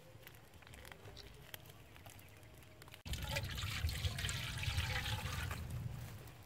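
Faint small clicks, then about halfway in water is poured from a clay pot into a large metal wok, splashing and running for about three seconds before tapering off.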